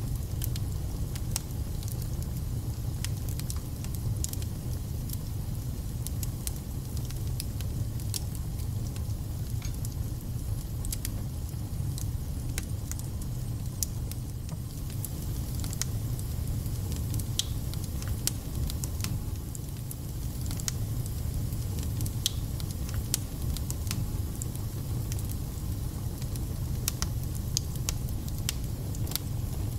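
Wood fire burning in a fireplace: a steady low rumble with scattered, irregular crackles and spits.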